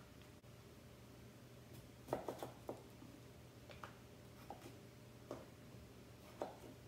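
Knife cutting raw peeled potatoes in half on a wooden cutting board: a few faint, scattered knocks of the blade against the board.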